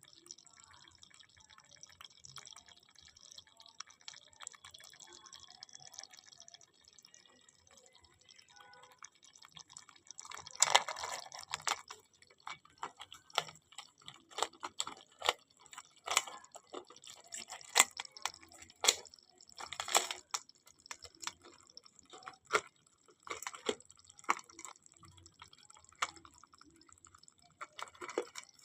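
Live mud crabs making a faint fine crackle at first, then irregular sharp clicks and knocks from about ten seconds in.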